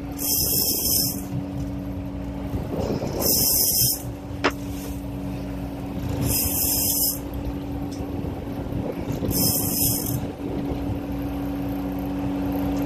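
Steady drone of the idling boat's engine, with a short burst of hiss about every three seconds and one sharp click about four and a half seconds in.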